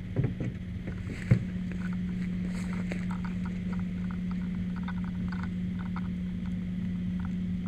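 Bolt cutters snapping through metal on a wrecked car, one sharp crack about a second in after a few lighter knocks, over a steady low hum of running machinery. Scattered light ticks and crackles follow.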